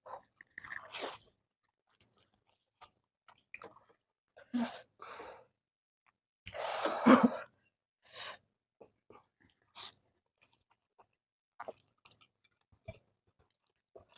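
People eating spicy noodles: chewing and mouth noises in short, separate bursts, the loudest about seven seconds in.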